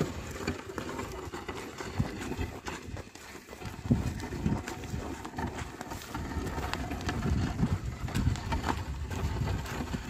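Hooves of a pair of plough oxen and footsteps on dry, stony soil, with irregular thuds and scraping as a wooden ox-drawn plough is dragged through the earth.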